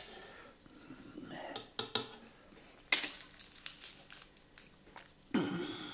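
A metal spoon and dishes clinking as they are handled, a few sharp clicks a second or so apart, with a louder, fuller noise near the end.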